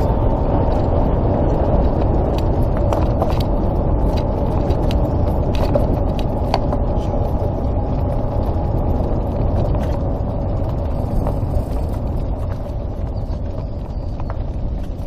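Golf cart driving along a paved road: a steady running and rolling rumble with scattered small clicks and rattles, easing slightly near the end.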